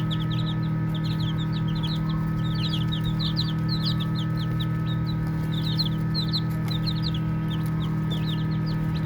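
A group of baby chicks peeping: many short, high chirps falling in pitch, overlapping in clusters. A steady low hum runs underneath.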